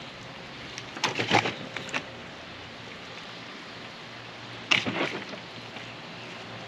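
Fillet knife cutting through a blackfin tuna, scraping and clicking against its bones: two short clusters of sharp scrapes, about a second in and just before five seconds, over a steady low hiss.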